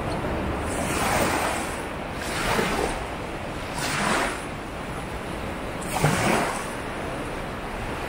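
Sea waves breaking and washing up a sandy beach: four surges of surf over a steady low rumble of the sea, the loudest about six seconds in.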